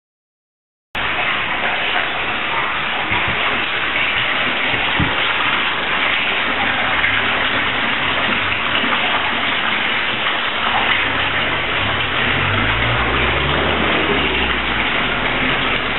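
Hot spring water pouring steadily into a wooden bath, a continuous loud splashing rush that starts suddenly about a second in. A low rumble joins in near the end.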